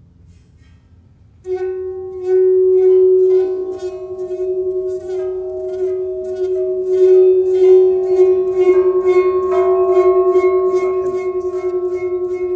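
A sustained ringing musical tone starts suddenly about a second and a half in and holds one steady pitch. It pulses about three times a second, and higher tones join in later.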